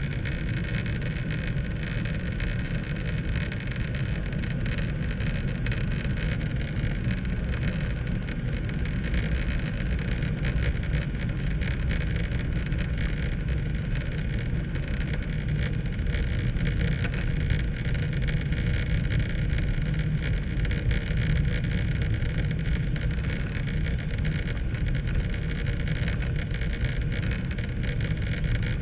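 Cabin noise inside a Ryanair Boeing 737-800 on landing approach with its flaps extended: a steady rumble of the jet engines and rushing airflow, growing a little louder over the second half.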